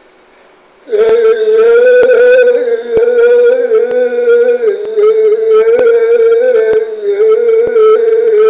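A man's voice holding one long, loud, wordless sung note that starts about a second in, wavering slightly in pitch with a few short dips.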